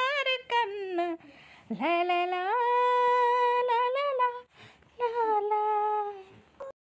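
A high voice humming a sing-song tune of long, sliding notes, breaking off briefly twice.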